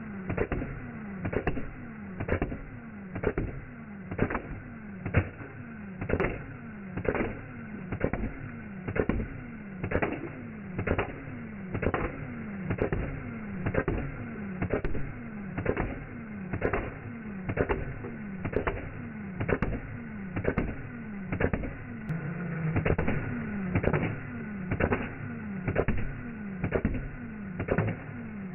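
Nerf Gelfire Mythic gel blaster firing gel balls at a steady pace, about one shot a second, each shot a short thump that falls in pitch.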